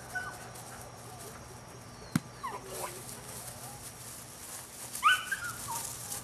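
Belgian Malinois puppy giving short high yips and whines as it tugs at and chases a rag, loudest about five seconds in. There is a single sharp knock a little over two seconds in.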